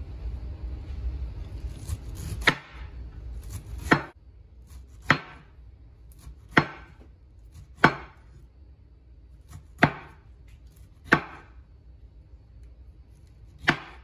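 Broad cleaver-style knife slicing rounds off a peeled pineapple, each cut ending in a sharp knock on a wooden cutting board, eight chops about a second or two apart.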